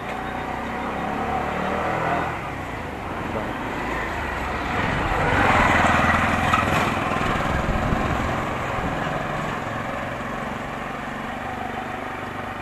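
A small motor vehicle's engine running close by, growing louder about halfway through and then fading.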